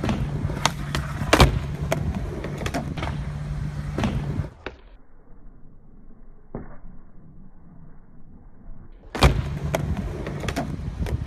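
Skateboard wheels rolling on concrete with a low hum and sharp clacks of the board, going faint and dull through the middle with a single clack, then loud rolling and clacks again near the end.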